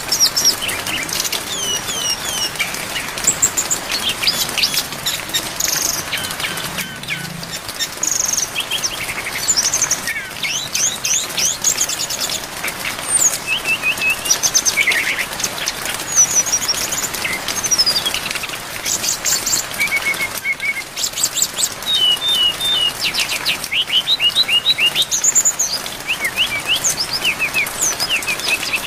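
Brown-chested jungle flycatcher (sikatan rimba dada coklat) singing a long, varied song of quick, high chirps, sweeping notes and trills, over a steady hiss of rain.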